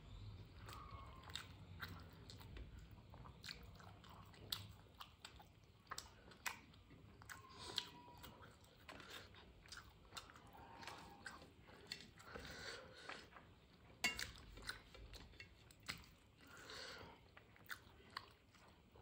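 Faint, close-up chewing of rice eaten by hand, with irregular soft mouth clicks and small crunches.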